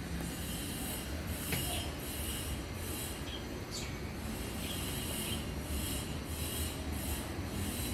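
Pioneer VZ-200 component system playing audio during a sound test after repair: a steady low hum with a hissy beat repeating about twice a second.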